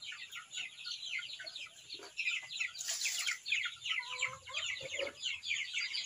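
A flock of young upgraded native chickens peeping continuously in rapid, short, high, falling cheeps, with a few lower clucks about four to five seconds in and a brief rustle about three seconds in. The birds are hungry and have not yet been fed.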